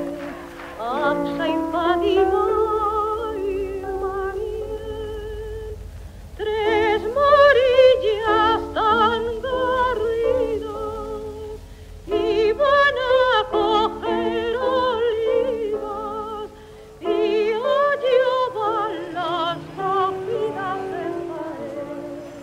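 Music: operatic singing with a wide vibrato, in long sung phrases broken by short pauses about six, twelve and seventeen seconds in.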